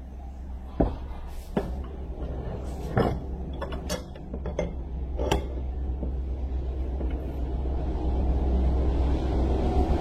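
Metal parts and tools clinking and knocking, about six sharp knocks in the first half, as steering rack parts are fitted by hand, over a low rumble that grows louder near the end.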